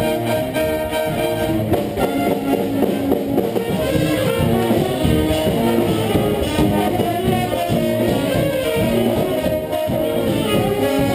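Live brass band playing: trumpets, saxophones and trombone over drum kit and bass.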